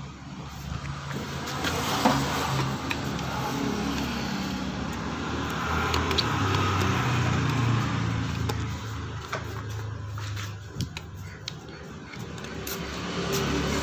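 An engine running steadily with a low hum whose pitch drifts a little, and a few sharp metallic clicks from a pump oil can being worked on the scooter's stand and brake linkage.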